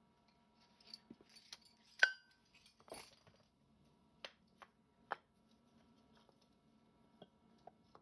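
Small metal parts and tools clinking and tapping as they are handled, with one sharp ringing clink about two seconds in, a short rattle just after, then a few lighter ticks.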